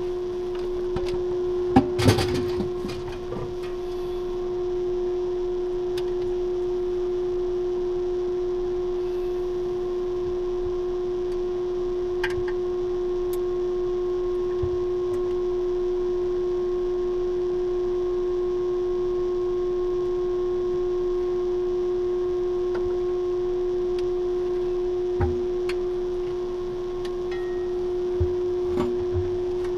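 Steady hum of the space station's ventilation fans and equipment, one constant low tone with fainter tones above it. A cluster of knocks about two seconds in and a few lighter knocks later on come from the hatch and its fittings being handled.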